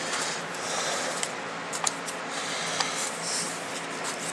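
Small handling noises from fitting a laptop keyboard's ribbon cable into its connector: a few faint clicks and soft plastic rustles over a steady hiss.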